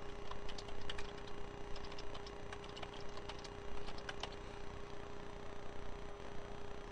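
Computer keyboard keys clicking as a short word is typed: a quick, uneven run of light clicks that stops about four seconds in, over a steady faint hum.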